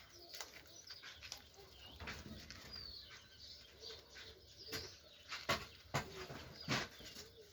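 Birds chirping in short high calls, with a few sharp knocks or flaps between about five and seven seconds in.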